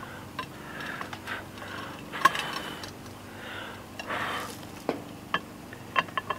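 Steel lid lifter clinking against the handle of a cast iron Dutch oven lid as it is worked into place: a handful of sharp metal clinks spread through, with softer scraping noises between them.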